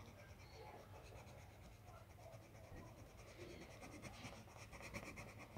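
Faint, steady scratching of a coloured pencil shading back and forth on spiral-notebook paper.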